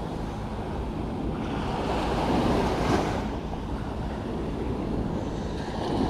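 Sea surf washing in, swelling louder about two seconds in, with wind buffeting the microphone.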